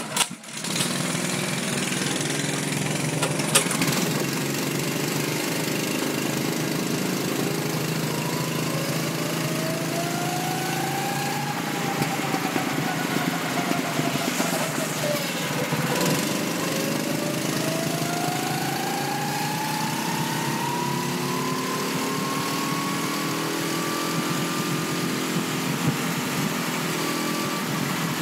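Go-kart's small engine running hard under the driver, starting abruptly right at the start. Its pitch climbs as the kart accelerates, drops to a low point about halfway through as it slows, then climbs again.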